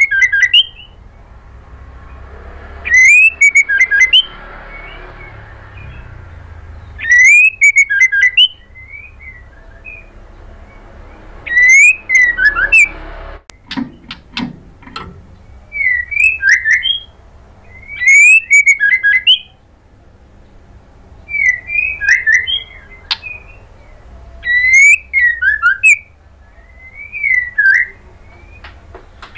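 White-rumped shama (murai batu) singing: loud phrases of quick whistled notes, many of them rising, each phrase a second or two long and repeated about every four seconds. A few short knocks sound near the middle.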